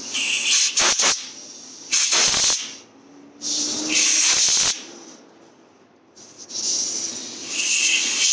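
Compressed air blown in four short, hissing bursts, the last one longest, clearing chips out of a stripped bolt hole in an aluminum K24 engine block that is being repaired with a HeliCoil insert.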